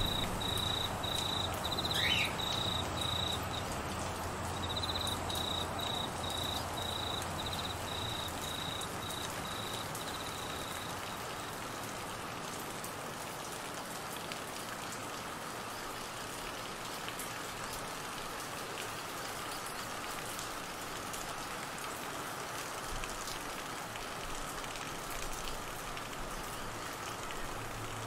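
Steady heavy rain falling on trees and grass. Over it, a cricket chirps in rapid high-pitched pulses until about ten seconds in, and a short rising whistle sounds about two seconds in.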